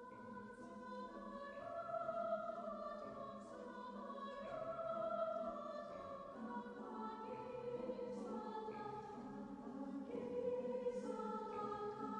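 Soft choral music: voices singing long, slow held chords that shift every second or two.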